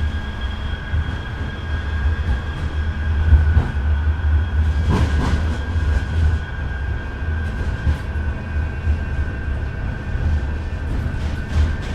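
A British light-rail train running on its track: a steady low rumble under a constant high whine, with scattered clicks from the wheels and a louder rush of noise about five seconds in.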